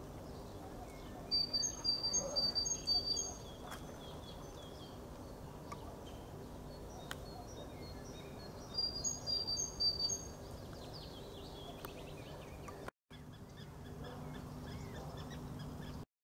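A small songbird sings two phrases of quickly repeated high notes that alternate between two pitches, one about a second in and one about nine seconds in. Under them runs a steady low hum of distant background noise.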